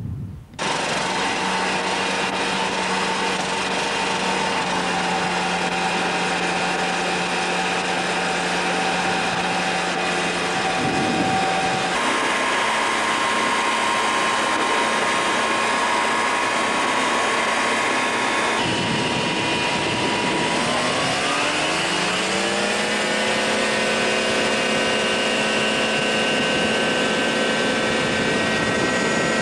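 Microlight aircraft engine and propeller running steadily, then rising smoothly in pitch about twenty seconds in as it goes to full power for the takeoff run on a grass strip. The sound shifts abruptly a couple of times at edits in the recording.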